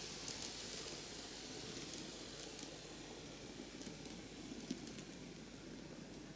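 N-gauge model train (Microace Seibu 4000 series) running on its track: a faint steady whirring hiss of the motor and wheels, with a few light clicks now and then.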